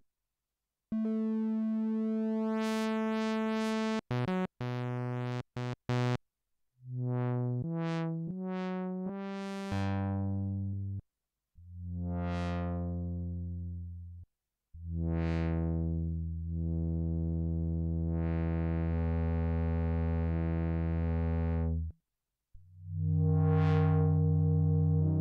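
Roland GAIA 2 synthesizer sounding held notes and short phrases while a panel knob is turned, so the tone repeatedly brightens and dulls as the upper harmonics swell and fall back. Short silences fall between phrases, with one long held chord in the middle.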